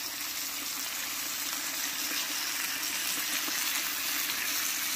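Broth boiling in a Topwit electric hot pot, with steaks sizzling on the griddle beside it: a steady bubbling and hissing.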